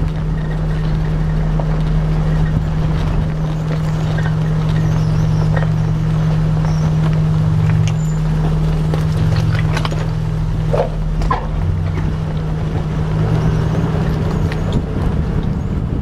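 Nissan Patrol GQ four-wheel drive's engine running steadily while driving off-road, with a few short clicks and knocks around the middle.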